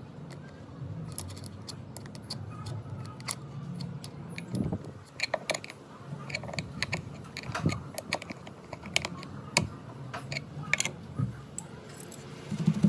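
Irregular light clicks and taps of wood pieces being handled and fitted together, sparse at first and more frequent from about four and a half seconds in, over a low steady hum.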